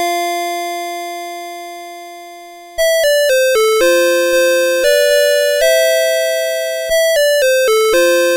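CITIZEN Melody Box 30 series alarm clock playing its electronic alarm melody, a tune of clean electronic notes that each fade after they strike. A long held note dies away, then a quicker run of notes starts about three seconds in.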